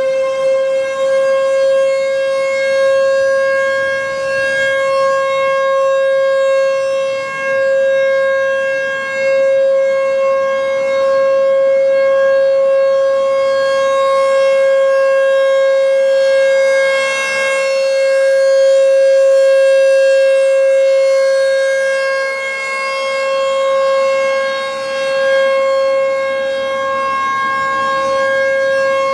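American Signal T-128 electromechanical outdoor warning siren sounding its Full Alert cycle: one continuous steady tone, reaching full pitch right at the start and then holding, with slight swells and dips in loudness.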